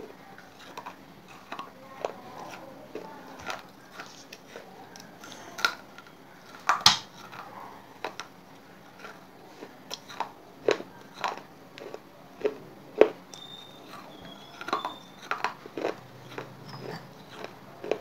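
Soft wet clay chips being bitten and chewed close to the microphone: sharp, irregular crunches and snaps about once a second, the loudest about seven seconds in.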